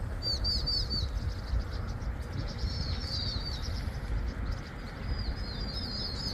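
Small birds chirping in quick runs of short, high notes, three runs a couple of seconds apart, over a low steady rumble.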